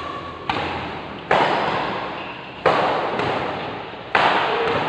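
Badminton rackets striking the shuttlecock in a rally: four sharp hits about a second apart, each ringing on in the echo of a large hall.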